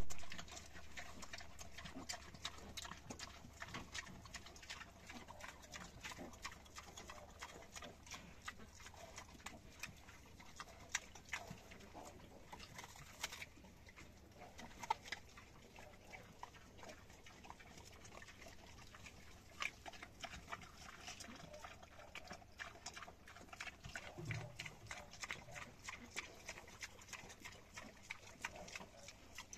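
Sow and her striped piglets moving about in fresh grass bedding: a faint, steady patter of small clicks and rustles, with a short low sound from the sow late on.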